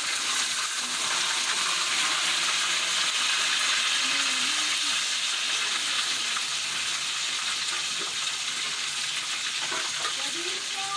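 Hot oil sizzling steadily in a wok as pieces of seasoned chicken deep-fry.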